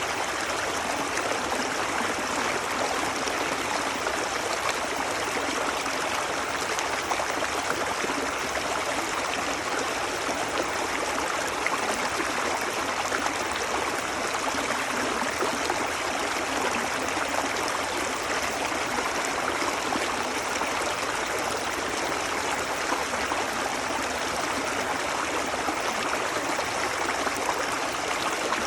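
Creek water running steadily, an even, unbroken rushing with little deep rumble.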